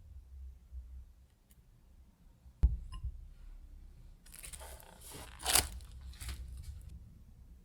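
A single sharp knock, then a few seconds of tearing and crinkling as kitchen packaging is torn, loudest about halfway through.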